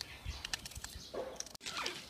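Birds and other small animals chirping and calling, over crisp clicks and rustles of onion being peeled and separated by hand. The sound cuts out for an instant near the end.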